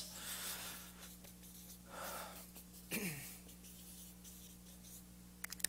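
Faint scratching strokes of a felt-tip marker writing on a paper flip chart, over a steady low hum.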